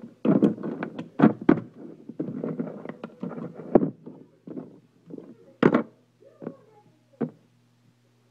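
Canned dog food being portioned into stainless steel dog bowls: a quick, irregular run of knocks and clatter against the metal bowls, thinning out about four seconds in, with one louder knock a little later.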